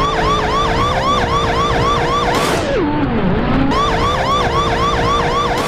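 Police car siren in a fast yelp, about five rising-and-falling whoops a second. It breaks off briefly in the middle for a low falling swoop, then resumes.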